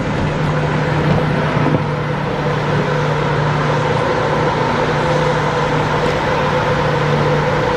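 Shuttle bus riding, heard from inside the cabin: a steady drone of engine and road noise with a constant low hum that holds unchanged throughout.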